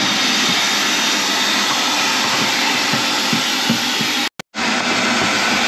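Shop vac running steadily while vacuuming the bare floor of the cab. The sound cuts out for a moment about four seconds in, then resumes.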